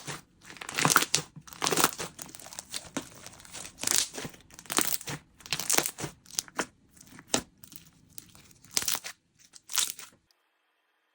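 Salt-bread-shaped slime squeezed and kneaded by hand: a run of short, irregular squishing sounds, roughly one or two a second, stopping about ten seconds in.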